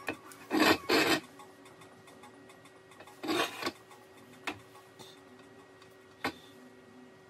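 Short rasping scrapes at a workbench: two close together about a second in, a longer one around three and a half seconds, then two light clicks.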